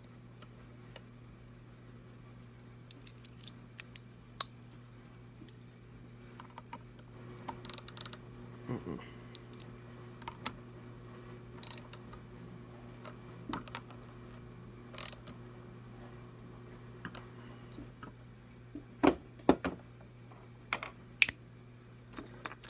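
Irregular small clicks and taps, a few at a time, with a louder cluster near the end, over a steady low hum.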